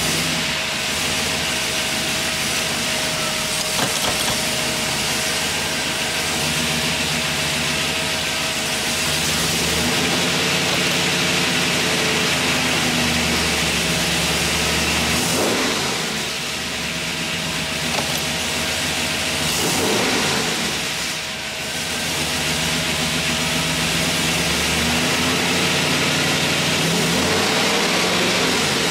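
502 big-block V8 in a 1937 Ford hot rod driving in gear, heard from inside the cabin. The engine note rises and falls with two brief dips along the way, and the revs climb near the end as it accelerates to about 2,600 rpm.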